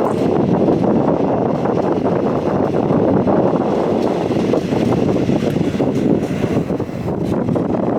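Heavy wind buffeting the microphone of a moving train, a steady rough rushing noise over the train's running noise.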